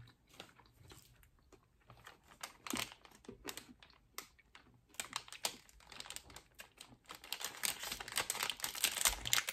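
Plastic foil chocolate wrapper being handled and crinkled: a scatter of small crackles and clicks that grows much busier about halfway through.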